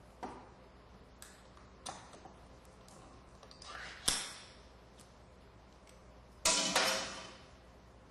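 Ring-pull tin can being opened by hand: a few small metallic clicks, then a short rising tearing sound that ends in a sharp snap as the lid comes free about four seconds in. A couple of seconds later a metal spoon scrapes inside the can.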